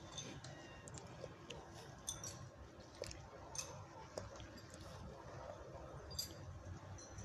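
Faint crackling and rustling of dry fallen leaves, with a few short high bird chirps.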